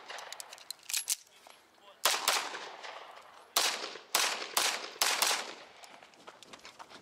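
Semi-automatic pistol fired rapidly: two fainter shots about a second in, then about seven loud shots, mostly in quick pairs, between about two and five and a half seconds in.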